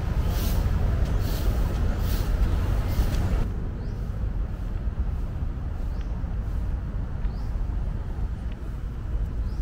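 Steady low outdoor rumble, with a few short rising bird chirps in the second half after a sudden change in the sound.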